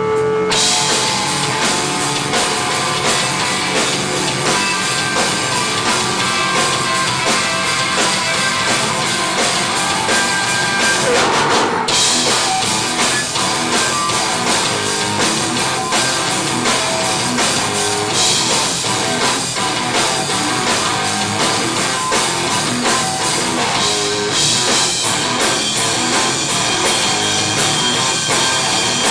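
Heavy rock band playing live: distorted electric guitar, bass and a drum kit with cymbals. The full band comes in just after the start, following a lone guitar.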